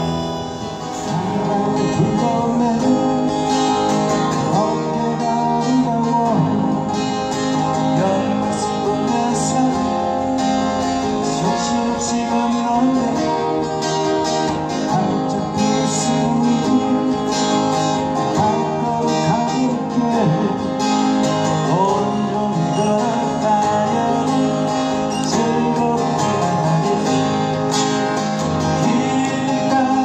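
Two acoustic guitars strumming and picking a song together, with a man singing the melody over them through the PA.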